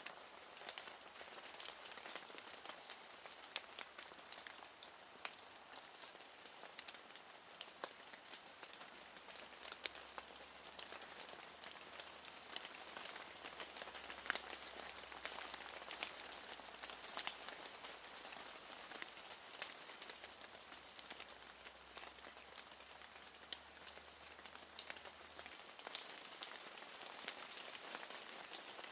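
Soft, steady rain, with many separate raindrops striking a window pane.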